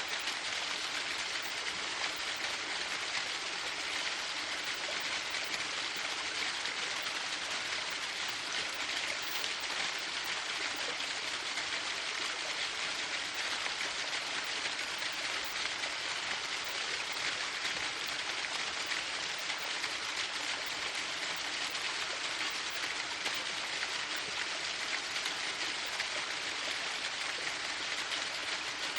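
Waterfall: water falling and splashing in a steady, unchanging rush, with most of its sound high and hissing and little low rumble.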